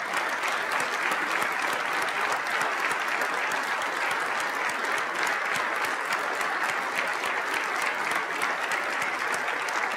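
Standing ovation in a legislative chamber: a large crowd of people clapping steadily.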